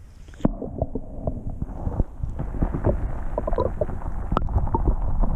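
River water heard from below the surface as a Murray cod is released beside a kayak: a muffled low rumble of moving water with many small pops and clicks. It turns muffled about half a second in, as the sound goes underwater.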